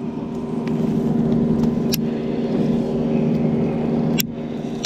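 Motorboat engine running steadily, a constant hum that swells slightly, with two sharp clicks about two seconds in and near the end.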